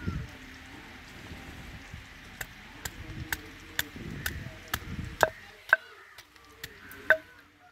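A wooden pestle pounding fresh ginger in a stone mortar, a run of sharp knocks about two a second. The ginger is being crushed to a paste.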